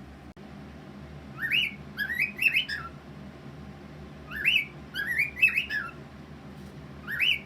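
Pet talking bird whistling a short phrase of quick rising and falling notes, repeated three times about three seconds apart.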